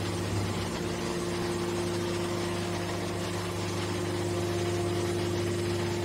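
Hydraulic power unit of a large scrap-metal baler running with a steady hum as the baler's lid is swung open.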